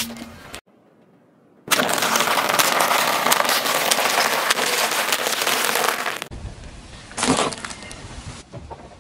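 Car tyre rolling over crisp waffle ice-cream cones, crushing them with dense, continuous crunching and crackling for about four and a half seconds. Later comes a quieter stretch with one short sharp crunch.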